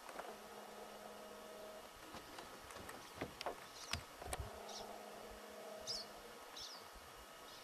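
A fly buzzing close by in two spells, a steady hum that comes and goes. A few short high chirps and some soft knocks fall in the middle.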